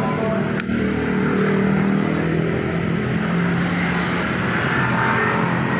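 A machine runs steadily with a low hum, and there is one sharp click about half a second in.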